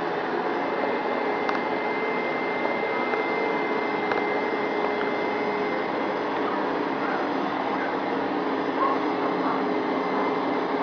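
Hoover Max Extract carpet cleaner running steadily: the rush of its suction motor with a thin high whine and a lower hum, unchanging throughout.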